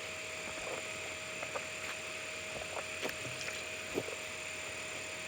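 Steady outdoor background hiss with a constant high-pitched band, dotted with a few soft clicks and taps.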